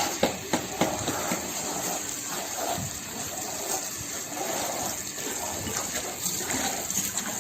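Water gushing steadily, with a few sharp knocks in the first second or so.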